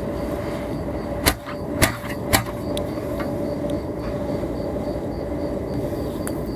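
Clothes dryer running, heard at its outside exhaust vent: a steady rush of air with a constant hum. About a second in come three sharp clicks, roughly half a second apart.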